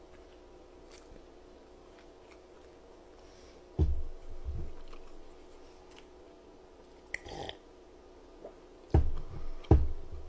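Close-miked eating and drinking sounds: quiet chewing, a short sip from a glass of cola about seven seconds in, and several low thumps on the desk, the loudest two near the end as the glass is set back down.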